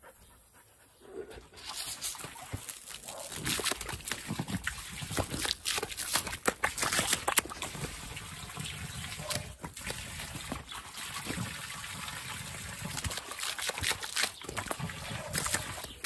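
A jet of water spraying and splashing into a collapsible plastic dog pool, with a dog biting and splashing at the stream; the water comes on about a second and a half in and goes on in uneven, splashy surges.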